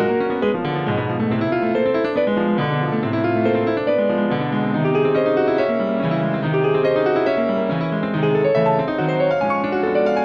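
Background instrumental piano music, a steady run of notes with no speech over it.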